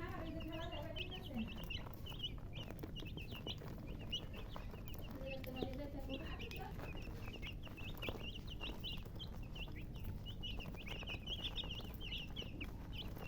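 Baby chicks peeping non-stop: many short, high chirps overlapping, over a low steady background hum.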